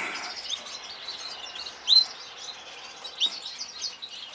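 Caged canaries chirping and twittering: a steady background of fast, high twittering, with a few short, sharp rising chirps standing out, the loudest about two seconds in.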